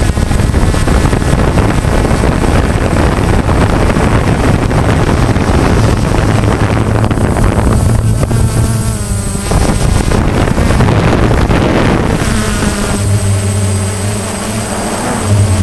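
DJI Phantom quadcopter's motors and propellers buzzing, heard from the camera on board, under a heavy rush of wind noise on the microphone. The motor pitch shifts as the drone manoeuvres, with a falling pitch about eight seconds in and a stronger, steadier hum near the end.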